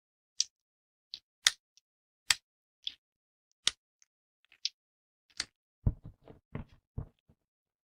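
Thin plates of dry soap snapping by hand: sharp, crisp cracks about once a second, then a quick run of fuller crunches about six seconds in.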